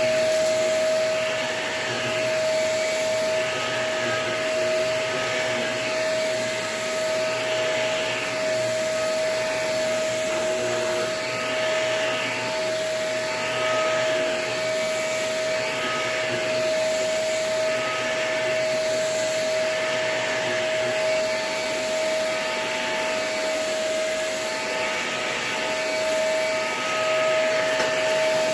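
Vacuum cleaner running with a very dirty, clogged filter. It gives a steady motor whine under a hiss of suction that swells and fades about every two seconds.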